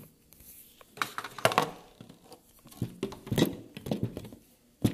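Handling noise from small plastic toy figures and a plastic playset being moved about by hand: a few short bursts of clicking, tapping and rustling with quiet gaps between.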